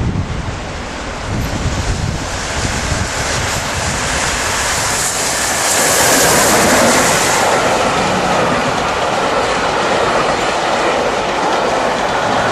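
Peppercorn A1 Pacific steam locomotive Tornado and its train passing at speed. A rising rush of noise peaks about six seconds in as the engine goes by, then the coaches run past with a steady rattle and clickety-clack of wheels over the rail joints. Wind buffets the microphone in the first couple of seconds.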